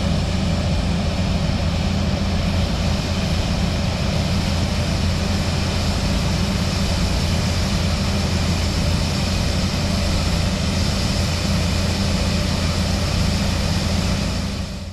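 Heavy diesel engine of harvest machinery running steadily under load, with a deep constant hum. It drops away at the very end.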